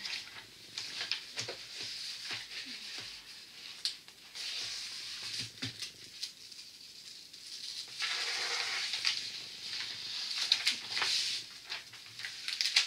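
Rustling and crinkling of a rolled diamond-painting canvas and its protective paper sheet as hands unroll it, press it flat and roll it back the other way to straighten it, with scattered small taps and clicks. The rustle grows louder and steadier for a few seconds past the middle.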